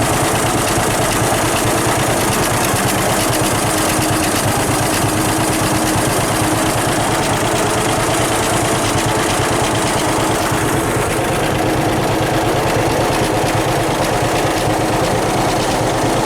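John Deere 6300 tractor's diesel engine running steadily under load while pulling a small square baler, with a fast, even pulse.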